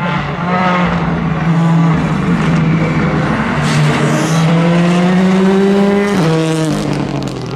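Rally car engines revving hard as the cars drive through the stage. The pitch climbs steadily for a few seconds and falls off sharply about six seconds in.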